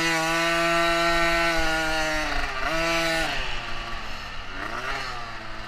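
Small dirt bike engine under throttle, holding a steady high rev. About two and a half seconds in it dips and picks up again, then eases off to a lower, wavering pitch and gets quieter.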